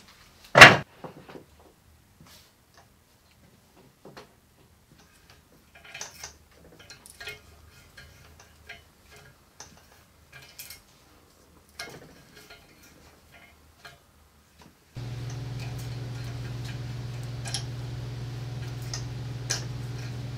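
A heavy steel box set down on a wooden bench with one loud clunk just after the start, followed by scattered light metallic clicks of a tap being turned by hand into the steel plate. About three-quarters of the way through, a steady low hum starts under the clicks.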